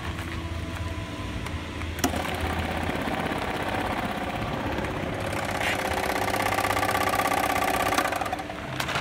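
Bag-closing sewing machine stitching the top of a filled woven rice sack: a fast, even mechanical chatter that starts with a click about two seconds in, grows louder past the middle and stops sharply near the end.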